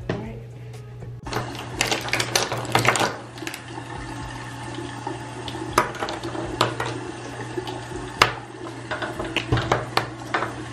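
Makeup brush handles clicking and clattering against each other and a stone countertop as the brushes are picked up and wiped clean, over a rustling of bristles. The clicks come irregularly, in quick clusters, with a low steady hum underneath.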